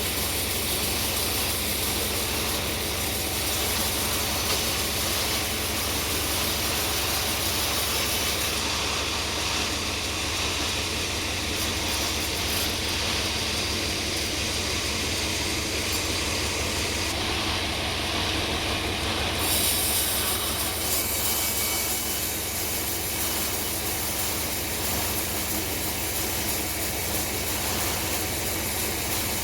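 Sawmill running steadily while sawing a hardwood log of bongkeng: a continuous mechanical noise with a low hum and a high hiss, even in level throughout.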